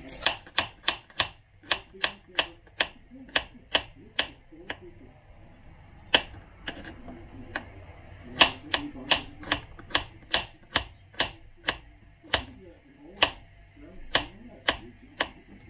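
Small kitchen knife slicing garlic cloves on a wooden cutting board: a run of sharp knocks of the blade striking the board, about two or three a second, pausing briefly a couple of times.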